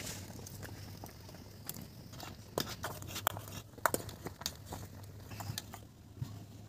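Cooking over a wood fire on a clay stove, with a pot of water at a rolling boil: irregular light crackles and clicks as the firewood burns and a metal ladle stirs in the aluminium pot.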